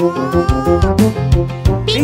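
Playful cartoon background music with a regular beat, and one gliding note that rises over the first second.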